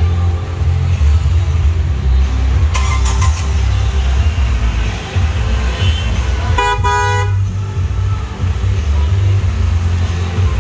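A car horn honks once, briefly, about seven seconds in, over a steady low rumble.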